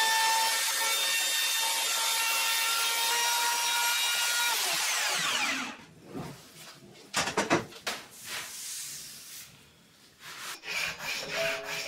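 Bosch router with a high steady whine, cutting the edge of an oak tabletop, then switched off about five seconds in, its whine falling as the motor spins down. A few sharp knocks follow about two seconds later.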